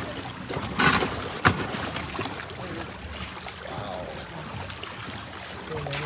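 Water splashing and sloshing against a boat's side as a crowd of sharks thrashes at the surface, with a louder splash about a second in and a sharp knock just after.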